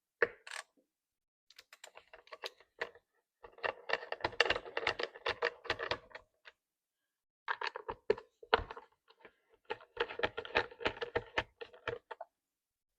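T25 Torx driver clicking rapidly as it backs out the screws holding a Poulan chainsaw's top cover, in four bursts of quick clicks with short pauses between.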